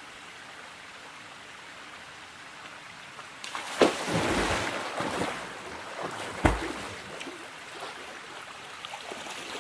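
Stream water running steadily. About three and a half seconds in, loud splashing starts, with two sharp knocks a few seconds apart, then the water settles back to a steady run.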